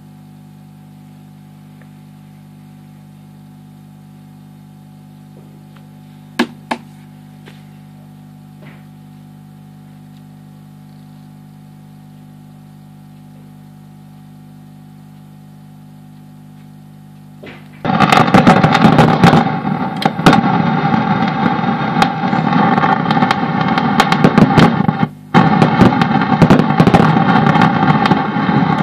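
Fender Bassman tube guitar amp humming steadily through its speaker, with a couple of faint clicks. About 18 seconds in a loud crackling, popping noise cuts in and keeps going, dropping out briefly once: the intermittent noise fault the amp is being checked for.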